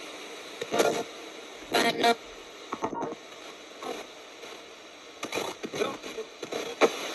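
Ghost box radio sweeping rapidly through stations: a steady hiss of static broken every half second to second by brief, chopped-off snippets of broadcast sound.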